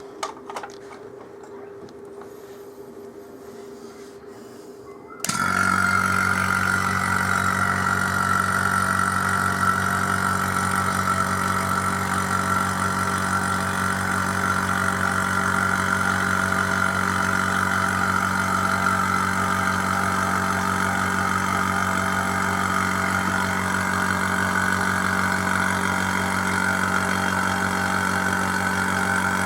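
An electric motor-driven machine switches on suddenly about five seconds in and keeps running with a steady mains hum and a higher whine.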